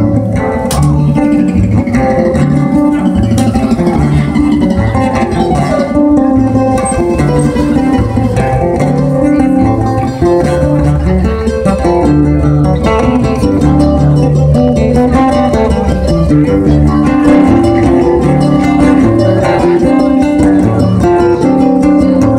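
Mandolin and acoustic guitar playing an instrumental passage, plucked notes and strummed chords with no singing.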